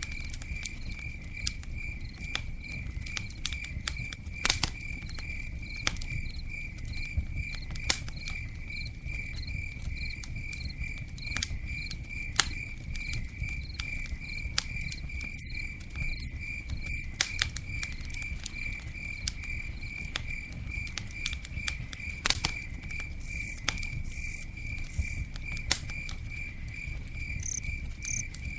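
Campfire burning with scattered sharp crackles and pops over a low steady rumble, while a cricket chirps steadily, about three chirps a second.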